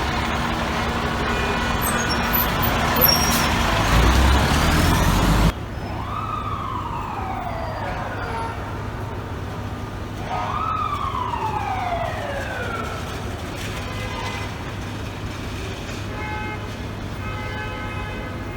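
Fire engine siren and traffic: a loud rush of a fire truck and street traffic, then after a sudden cut a siren that rises quickly and winds down slowly, twice, over a steady low engine hum. Fainter steady siren tones follow near the end.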